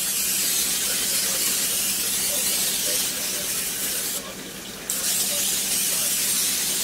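Aerosol non-stick cooking spray hissing as it is sprayed across a glass baking dish: one long spray, a short break about four seconds in, then a second long spray.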